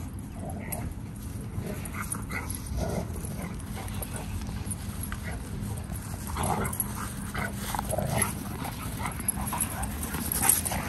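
Dogs at rough play, giving many short vocal sounds, busiest from about six seconds in, with one loud sound near the end.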